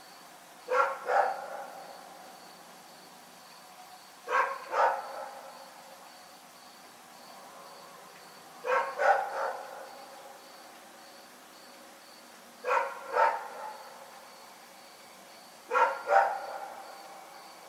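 A dog barking in repeated bouts of two or three barks, five bouts spaced about four seconds apart.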